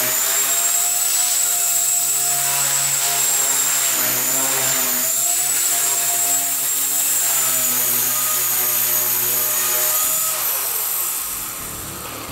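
Blade 130 X micro electric RC helicopter flying: a steady high motor whine and rotor buzz that dips in pitch a few times as it manoeuvres, then spools down near the end as it sets down.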